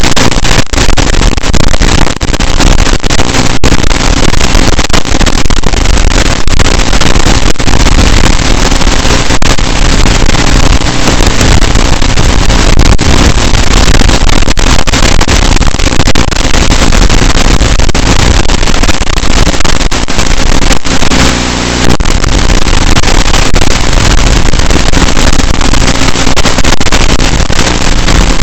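Loud, steady buzzing hiss from a tiny whoop micro quadcopter's onboard FPV recording, with many brief dropouts and a short dip in level about 21 seconds in.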